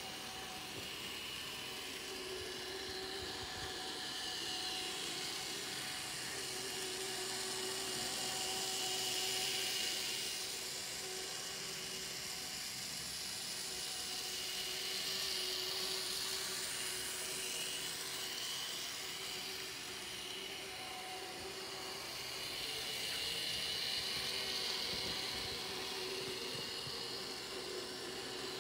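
Z-scale model train locomotives running under digital control: the tiny electric motors give a steady high whine and hiss that grows louder and softer a few times.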